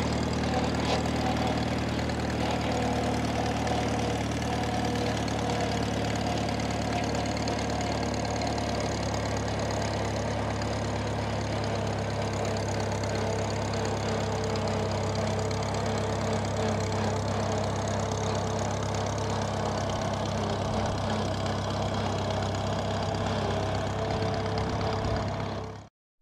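1950 Farmall Cub's four-cylinder flathead engine idling steadily.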